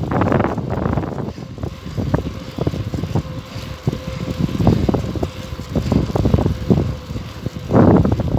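Wind rumbling in gusts on the microphone of a camera carried on a moving bicycle, with a faint steady hum underneath from about a second in.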